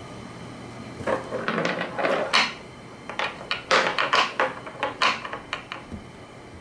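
A cat batting a small hard object so that it rolls and skitters across a wooden floor and knocks against a wooden stand: a run of irregular clatters and taps that starts about a second in and dies away near the end.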